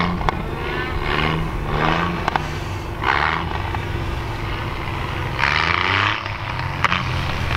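Small 4x4's engine revving hard in repeated surges as it spins its wheels and plows through deep powder snow, driven near the rev limiter.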